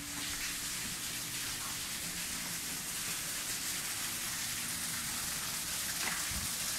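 Steady hiss of running, splashing water.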